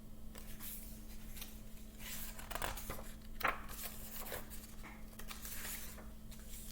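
Paper rustling as a picture book's pages are handled and turned, with the sharpest crinkles about three seconds in.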